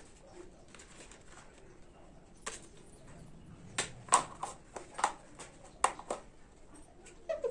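Small clear plastic snap-lid box being handled: a series of sharp plastic clicks and taps as its lid is worked open and pressed shut, one about two and a half seconds in and then a quick cluster of about eight over the last few seconds.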